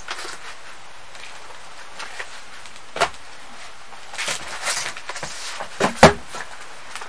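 Handling sounds of someone busy with household things: a few soft knocks and some rustling, with one sharper knock about six seconds in, over a steady background hiss.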